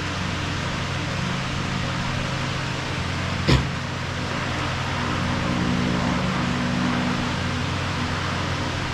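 Petrol lawn mower engine running steadily, with a single sharp click about three and a half seconds in.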